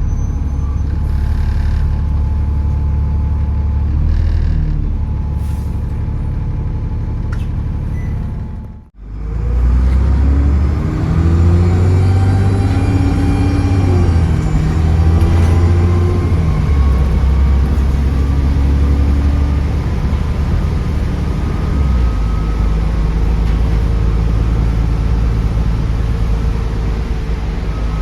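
Bus diesel engine heard from on board, with turbo whistle. About nine seconds in the sound briefly cuts out. Then the engine note rises in several steps as the bus pulls away through the gears, before settling to a steady drone.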